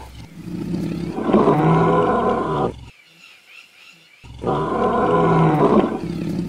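Lion roaring: two loud stretches of grunting roar about two seconds each, with a second of silence between them. The second is a mirror image of the first, as if the same roar were played backwards.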